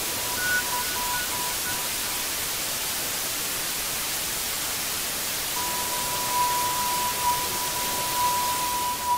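Steady static hiss, with a few short high beeps about half a second to two seconds in and a long steady high beep starting a little past halfway.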